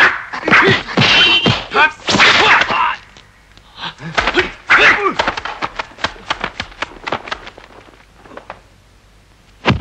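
Dubbed kung fu film fight sound effects: a rapid flurry of punch and block whacks with short yells, a pause, a second flurry, then a run of lighter hits that fades out.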